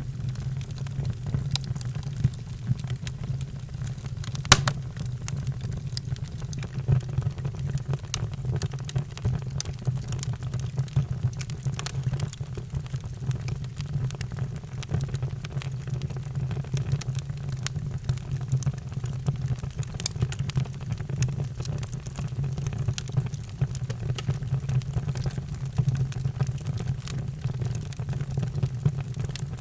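Wood fire crackling in a fireplace: a steady low rumble of the burning with frequent sharp pops and snaps, the loudest about four and a half seconds in.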